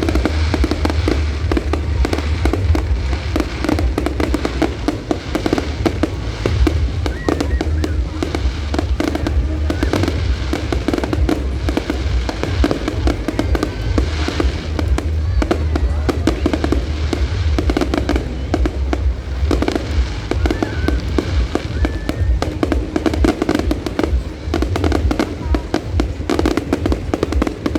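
Fireworks display going off in rapid, continuous bursts and crackles, with music playing underneath.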